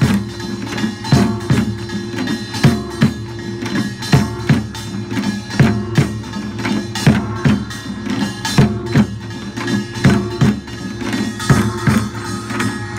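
Korean pungmul percussion ensemble playing: quick, uneven drum strokes over the steady ringing of metal gongs.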